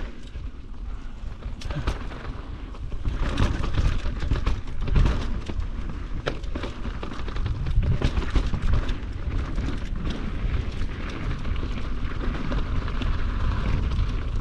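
Downhill mountain bike ridden fast over a rough, rocky dirt trail: tyres rolling and scrabbling over dirt and stones, with many sharp knocks and rattles from the bike over bumps. A low rushing rumble runs underneath.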